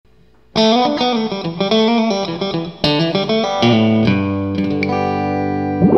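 Music for the intro, led by guitar. Quick plucked notes step up and down from about half a second in, then it settles into a held chord over a low bass in the second half.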